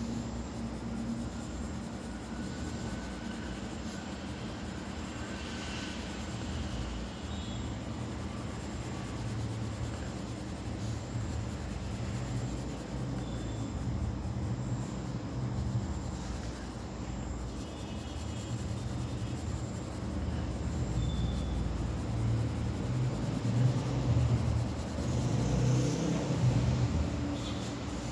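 A steady low rumble of background noise that swells in the second half, with a few faint, brief high chirps.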